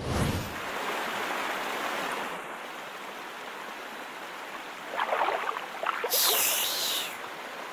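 A cartoon swoosh transition, then a stream running steadily. About five seconds in come a few small water splashes as water is scooped up by hand, followed by a brighter, louder hiss lasting about a second.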